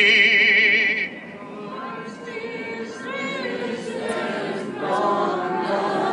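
A sung voice holds a long final note with a wide vibrato and stops about a second in. A quieter mix of several overlapping voices follows and grows louder toward the end.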